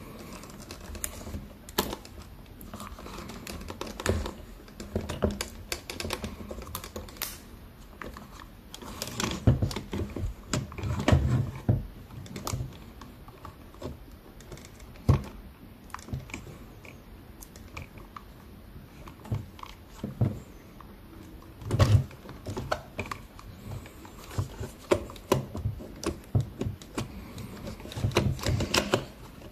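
Irregular clicks, taps and light knocks of small parts and hand tools being handled on a workbench, with denser bursts of clicking at a few points.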